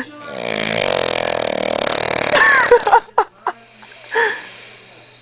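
A person snoring heavily: one long rattling snore of about two and a half seconds, then a few short snorts.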